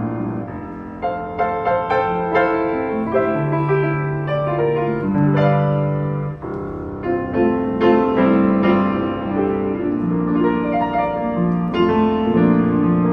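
A 1984 Yamaha U3 upright piano being played: a continuous passage of chords and melody, its struck notes ringing on and overlapping.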